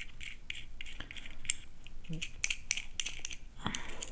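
Small plastic-and-metal clicks and scratches as a modular switch's fixing bolt is worked loose by hand and the switch is lifted off a plastic switch-board faceplate: an irregular run of light ticks, several a second.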